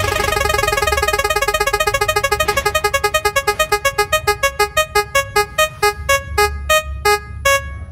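Spin-wheel sound effect: a rapid run of short electronic tone ticks that slows steadily as the wheel winds down, the last few well spaced out and stopping shortly before the end. A steady low hum sits underneath.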